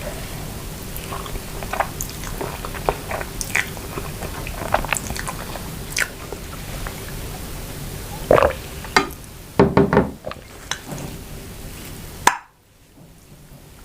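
Close-miked chewing of noodles and grilled chicken pieces, with many short wet mouth clicks and a few louder bites between about 8 and 10 seconds in. The sound drops off suddenly near the end.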